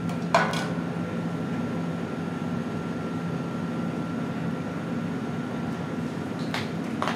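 Steady mechanical hum of room tone, a constant low drone with a thin high whine over it, broken by a sharp click about a third of a second in and a few knocks near the end.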